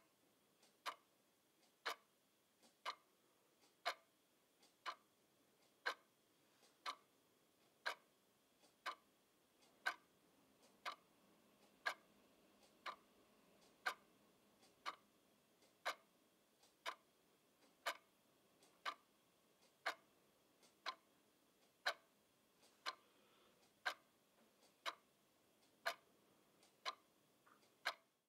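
Quartz twin-bell alarm clock ticking steadily, one sharp tick a second.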